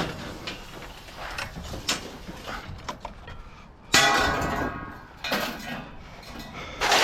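Scrap metal being handled: scattered clinks and knocks, then a sudden loud metallic clatter about four seconds in that rings on briefly.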